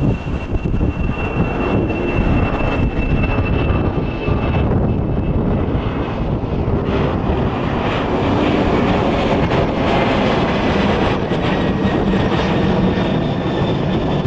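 A passing airliner's jet engines, loud and steady throughout, with a faint high whine in the first few seconds.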